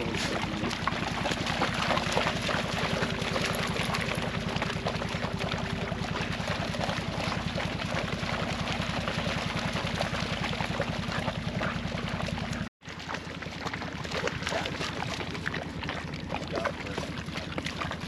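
Side-by-side off-road vehicle driving: a steady engine drone with rattle and wind over the ride, broken by a brief cut about two-thirds of the way through.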